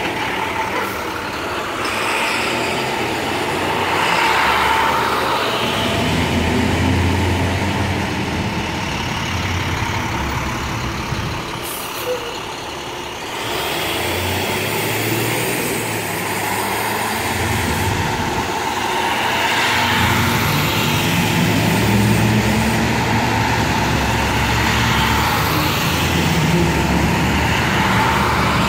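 Full-size school buses driving past one after another, their engines rumbling louder and fading as each bus pulls by and turns.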